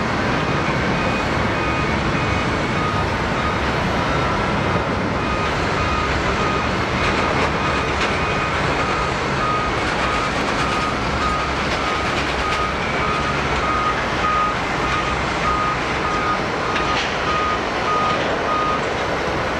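A ground-service vehicle's reversing alarm beeping over and over in a high tone, over steady jet engine noise on the airport apron.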